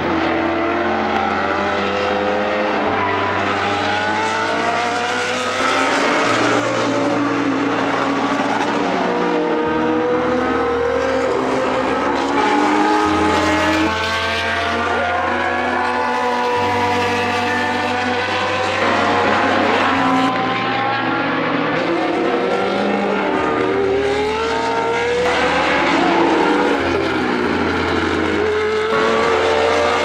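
1980s Formula One cars with Cosworth DFV V8 engines running at racing speed, the engine note climbing and dropping again and again as the cars accelerate through the gears and pass by.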